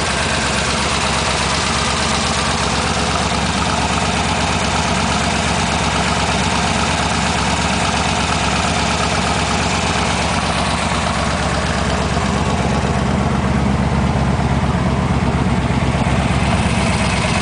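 A 1972 Chevrolet LT1 350 small-block V8 idling steadily, heard with the hood open.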